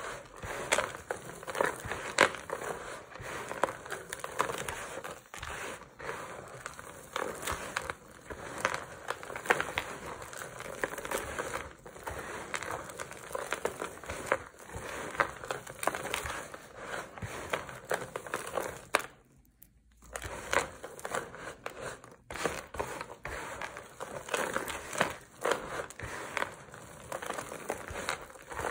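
Dry crumbled bar soap crunching and crackling as hands squeeze and rake through a pile of chips and powder, with a brief pause about two-thirds of the way through.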